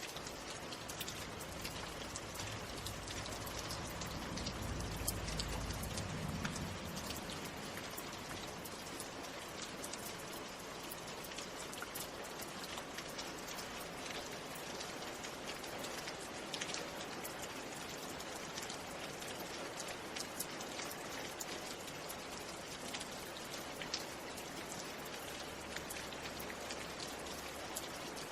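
Steady rain, with many individual drops pattering on a surface. A low rumble rises briefly about four to seven seconds in.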